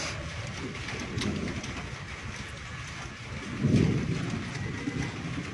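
Steady hiss of falling rain with a low rumble that swells about four seconds in.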